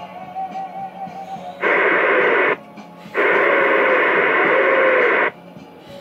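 CB radio receiver's squelch opening twice on an incoming signal, giving two abrupt bursts of loud static, the first about a second long and the second about two seconds, each with a faint wavering tone inside.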